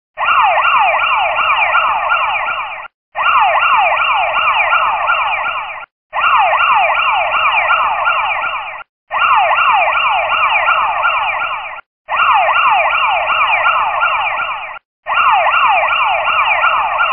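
Electronic siren, a quick run of falling wails repeated several times a second. It plays in identical blocks just under three seconds long with short breaks between them, each block stopping sharply like a looped sound effect.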